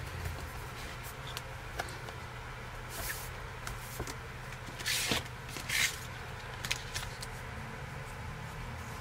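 Hands handling a MacBook and smoothing a vinyl skin onto it: scattered light knocks and taps, with three short rubbing swishes about 3, 5 and 6 seconds in, over a steady low hum.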